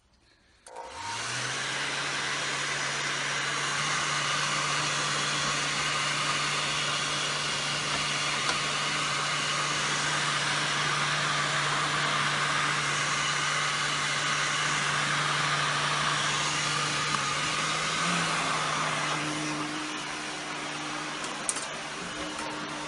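Heat gun switched on about a second in: its fan motor spins up, then blows steadily with a hum, softening PVC tubing. It gets a little quieter near the end.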